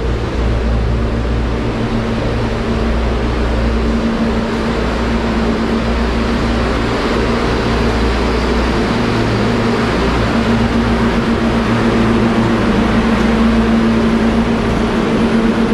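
Refrigerated container (reefer) units running, a loud steady hum of compressors and fans made of several held tones, one of which grows stronger about ten seconds in.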